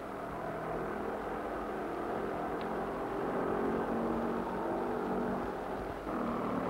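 Vespa scooter's single-cylinder two-stroke engine running steadily on the road. The note shifts slightly about six seconds in.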